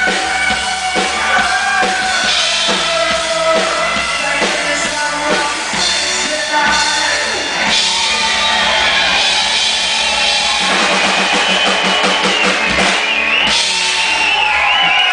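Live rock band with a drum kit playing the closing part of a song, the kick and snare keeping a steady beat. Past the middle a fast, even run of drum hits builds toward the finish.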